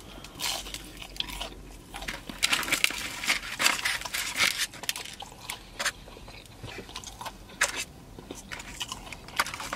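A person biting and chewing crispy-coated chicken bites close to the microphone: irregular crunches, with the densest run of crunching a few seconds in.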